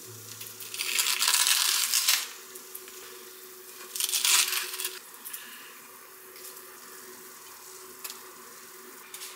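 Table knife scraping cream cheese across a bagel half: two scraping strokes, one about a second in and one about four seconds in, then quieter handling.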